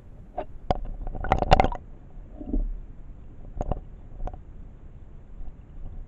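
Underwater sound of a stream over a gravel bed: a low gurgling rumble of flowing water with scattered sharp clicks and knocks, a quick flurry of them about a second and a half in and a few more a couple of seconds later.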